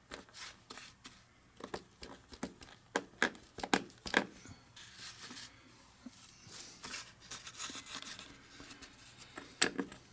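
Handling noise from working on a vintage sewing machine: scattered light metal clicks and taps, with a few short stretches of rubbing or scraping.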